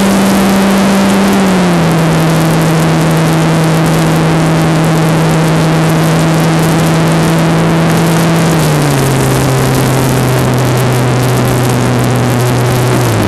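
O.S. .46 two-stroke glow engine on an RC plane running at high speed in flight, heard close up through an onboard camera over a steady rushing hiss. Its pitch drops in two steps, about a second and a half in and again about nine seconds in, as the throttle is eased back.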